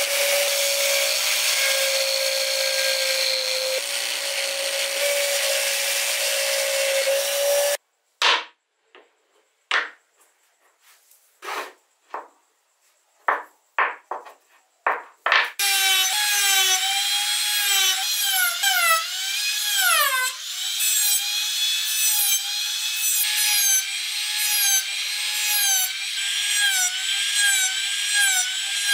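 A motor-driven spindle spins a wooden wheel at a steady pitch while sandpaper is held against it. It stops abruptly near the middle, leaving a dozen or so short scraping rubs of wood on wood. For the last half a handheld rotary tool whines, its pitch dipping and recovering again and again as the burr bites into the wheel to cut tread grooves.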